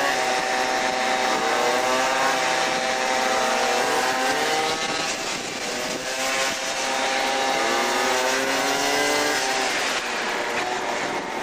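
Two or more small two-stroke scooter engines running at speed together, their notes overlapping and rising and falling with the throttle.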